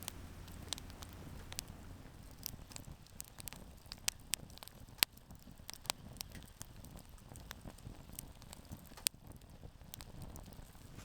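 Wood campfire crackling, with irregular sharp pops and snaps from the burning wood, a few of them louder.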